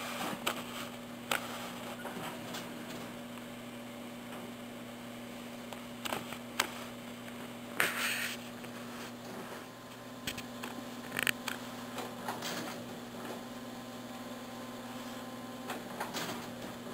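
Steady low electrical hum, with occasional brief rustles and soft clicks from fingers handling fibrous dubbing and thread; the most noticeable rustle comes about eight seconds in.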